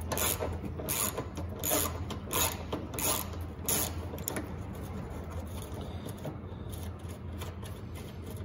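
Hand ratchet with a 10 mm socket backing out a bolt, its pawl clicking on each stroke, about two-thirds of a second apart, for the first four seconds or so. After that the clicks are fainter and more scattered as the loosened bolt is worked free.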